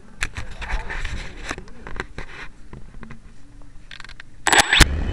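Handling noise on a small camera's body: rubbing and scraping with scattered clicks. Near the end come a few loud knocks, then a low rumble.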